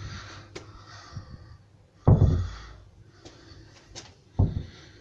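Two heavy thuds about two seconds apart, with fainter knocks and rustling between: a wooden outside door being shut against its newly fitted frame.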